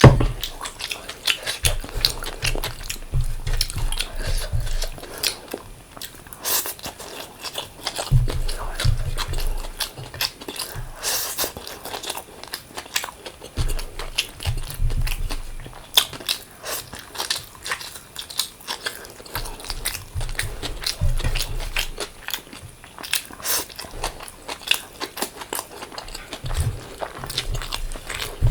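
Close-miked eating: chewing and biting food, with many sharp, wet mouth clicks and crunches and stretches of low jaw rumble.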